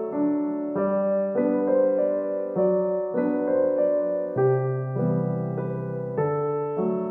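Background piano music: soft struck notes and chords that ring and fade, changing about once or twice a second.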